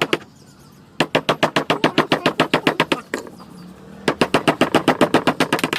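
Carving chisel struck with a mallet in rapid light taps, about ten a second, cutting into wood. Two runs of about two seconds each, starting about a second in and again about four seconds in, with a short pause between.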